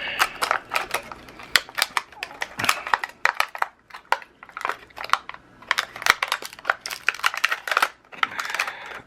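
Rummaging through a packet of cake decorating tips to dig one out: a steady run of small clicks and clinks as the tips knock together, with rustling handling.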